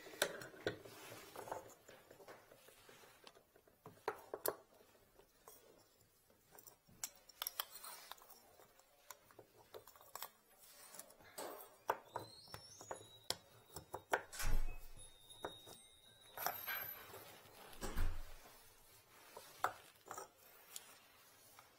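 Screwdriver and metal drain fittings clicking, scraping and clinking in a bathtub drain as the trap fitting is worked back into place, with scattered taps of tools on the tub. There are brief thin squeaks midway and two heavier knocks in the second half.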